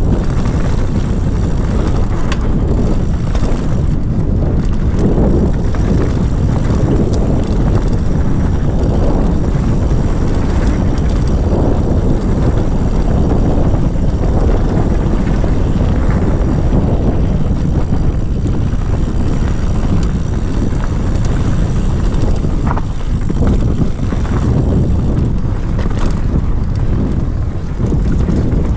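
Wind rushing over the action camera's microphone as a mountain bike descends a dirt trail at speed, with tyre noise on the dirt and a few sharper knocks and rattles from the bike over bumps.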